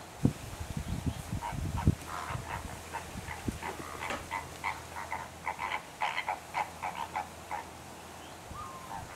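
A flock of greater flamingos calling: many short honking notes in quick succession, thinning out near the end. A few low thumps come in the first two seconds.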